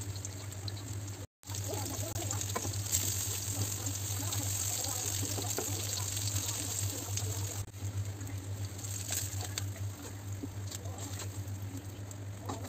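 Potato fritters frying in shallow oil in a wok: a steady sizzle over a low, even hum. The sound drops out for an instant about a second and a half in.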